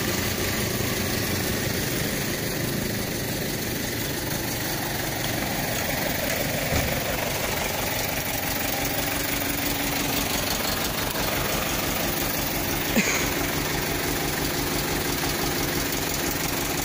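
Diesel truck engine idling steadily, with a short thump about seven seconds in and a sharp click near thirteen seconds.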